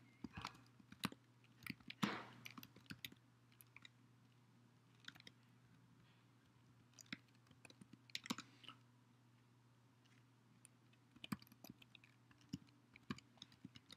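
Faint, sparse typing on a computer keyboard: short clusters of key clicks separated by pauses, over a low steady hum.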